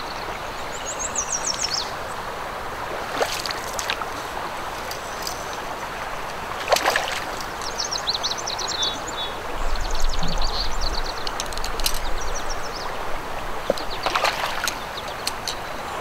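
Steady rush of river current flowing around a wading angler, with small birds chirping repeatedly over it and a few brief sharp noises.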